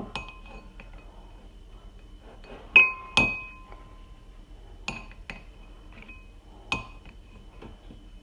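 A metal spoon knocking and scraping against a ceramic bowl while butter is scooped into it: about half a dozen sharp, ringing clinks, the two loudest close together about three seconds in.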